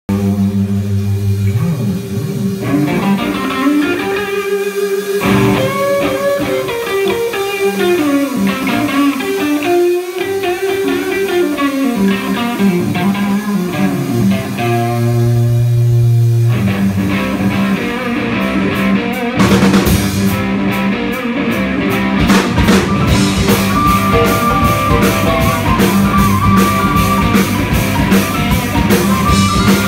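Live blues-rock band: a Stratocaster-style electric guitar plays melodic lines over sustained bass notes with no drumming, then about 17 seconds in the drums come in, a Sakae Trilogy kit with Zildjian cymbals, and the full band plays on.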